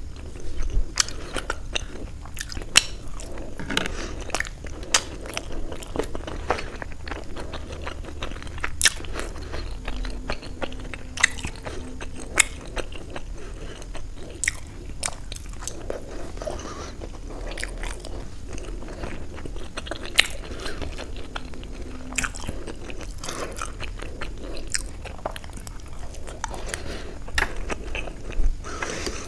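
A person chewing steamed paneer momos (dumplings) dipped in spicy chutney: soft wet chewing with many sharp mouth clicks and smacks scattered throughout.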